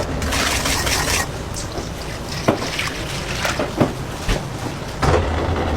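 Bakery production machinery running: a steady noisy din with scattered clicks and knocks.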